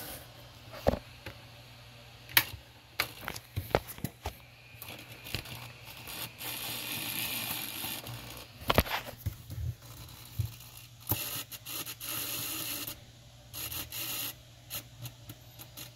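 Fingers handling a plastic N scale diesel locomotive: small scrapes, rubs and sharp clicks, with two stretches of a steady high hiss about six and eleven seconds in, over a steady low hum.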